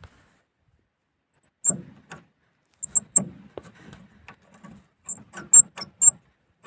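Volvo 140 suspension parts being moved by hand in the search for a clunk: an irregular run of short clicks and small squeaks, coming faster near the end, after a brief silence.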